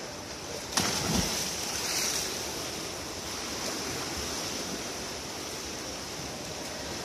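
A swimmer's racing dive hitting the pool water a little under a second in, followed by a steady rushing wash of churned water.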